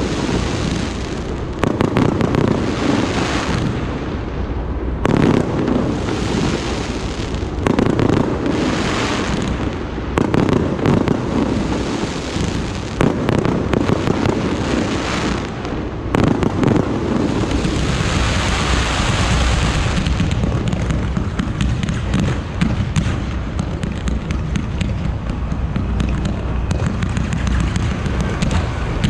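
Aerial fireworks bursting in quick, overlapping succession: a continuous barrage of bangs and crackling with no pause.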